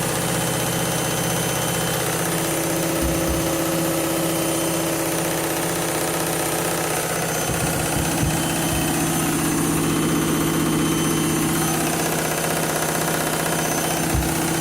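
Candy washing machine spinning its load of bedding fast on the final spin, a steady motor hum and whine with the drum running. A few short low thumps come about three seconds in, around the middle and near the end.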